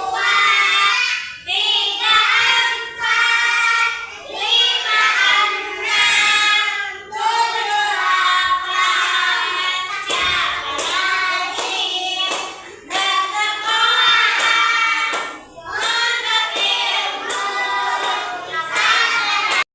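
A group of young children singing a song together, in phrases of a second or two with short breaths between.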